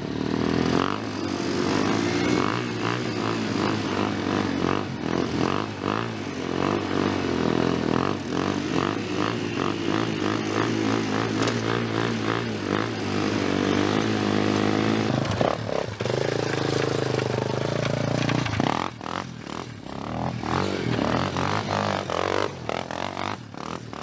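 Quad (ATV) engine running at high revs through a burnout, its rear wheels spinning in place. About fifteen seconds in the engine note breaks off and changes. After that it revs again in short, uneven pulls, with scraping and clattering.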